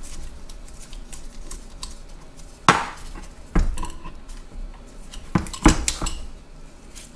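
Metal parts of a salvaged tractor distributor clinking and knocking as the distributor is separated from its drive housing and the parts and bolts are set down on the workbench. A few sharp clanks, the loudest a little under three seconds in and again near six seconds, with lighter clicks between.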